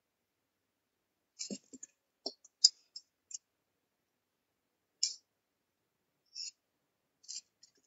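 Wire-mesh skimmer clinking against a metal frying pan and bowl while fried urad-and-moong dal vadas are lifted out of the oil: about nine separate sharp clicks at uneven intervals, with a couple of duller knocks in the first half.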